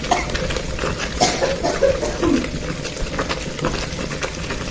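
Commercial stone wet grinder running, its rotating grinding stone churning thick red chilli paste around the steel drum: a steady hum under a constant patter of small wet clicks and slaps.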